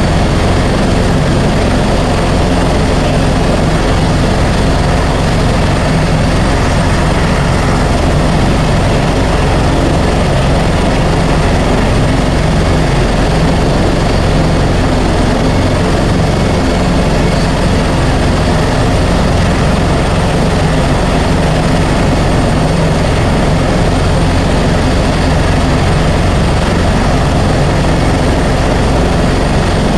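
Helicopter in flight: steady, loud engine and rotor noise with no change throughout.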